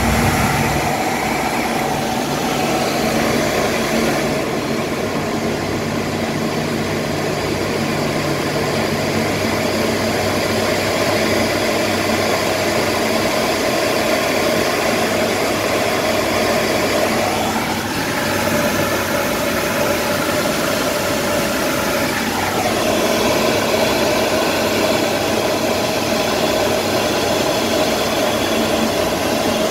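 Steady aircraft cabin noise in flight: a rush of air with the drone of the engines and several steady hums. Just past the middle, one hum drops slightly in pitch for about five seconds, then comes back up.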